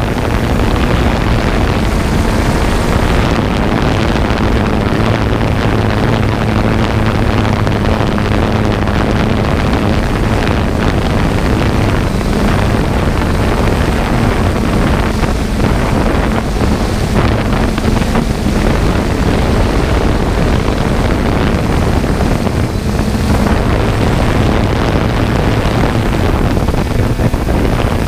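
John Deere combine harvester running steadily in the wheat, its engine hum held at an even pitch, with wind noise on the microphone.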